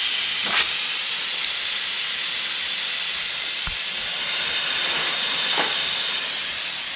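Air hissing steadily out of a punctured Jeep tire, held at about 40 PSI, through the hole being reamed out for a plug, fading slightly near the end. A few faint clicks.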